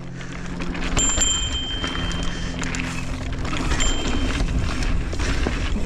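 Full-suspension mountain bike riding over the rollers of a dirt pump track: tyres rolling on packed dirt, the bike rattling and knocking over the bumps, and wind rushing over the camera microphone.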